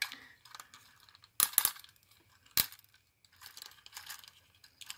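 Small plastic action figure's ratcheting joints clicking as its legs are bent, with parts knocking together: a cluster of sharp clicks about a second and a half in, a single sharp click just after the middle, and lighter clicks and rubbing between.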